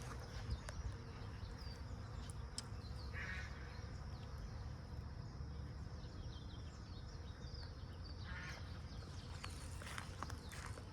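Outdoor ambience: a steady faint buzz of insects over a constant low rumble, with two brief soft rustles.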